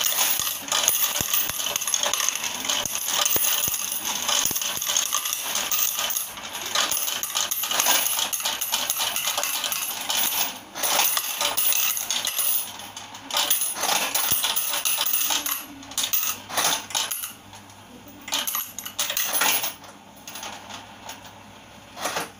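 Coin counting and sorting machine counting a batch of mixed rupee coins: a dense, continuous clatter of coins running through the machine and dropping into the sorting drawers. About halfway through it breaks into scattered bursts, and it thins out toward the end as the last coins are counted.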